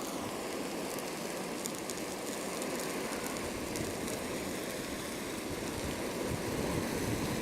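Wildfire burning in black spruce forest: a steady hiss of flames with faint scattered crackles, as the fire begins to pick up.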